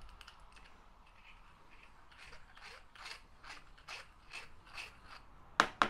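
Hand deburring tool's blade scraping the edge of the bore in an aluminium axle arm, in short repeated strokes about two to three a second, starting about two seconds in; it is clearing a burr so that a brass bush will fit. Two sharp knocks near the end are the loudest sounds.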